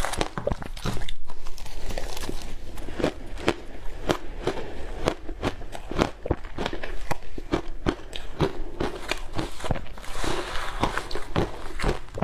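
Shaved ice crunching as a metal spoon digs through it and as mouthfuls are bitten and chewed: a dense run of irregular crunches and crackles.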